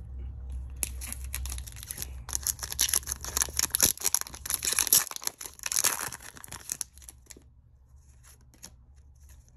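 Pokémon booster pack's foil wrapper crinkling and rustling as it is handled and the cards are pulled out. The rustling stops about seven seconds in, leaving a few faint taps.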